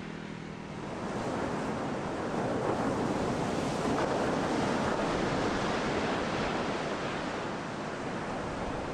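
Steady rushing noise of water, swelling about a second in and then holding even.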